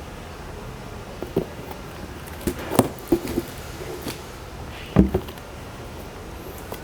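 Handling noise from a pair of sneakers and their box: a few scattered knocks and taps, the loudest about five seconds in.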